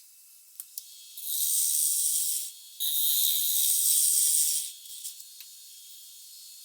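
Turning tool cutting wet walnut on a spinning lathe: two passes of scraping and hissing, the first about a second long and the second about two seconds, with a brief pause between them and a few light clicks before.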